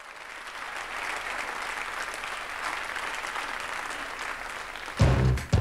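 Audience applause and cheering, fading up at the start and holding steady. About five seconds in, the band comes in with heavy bass guitar notes and drum hits.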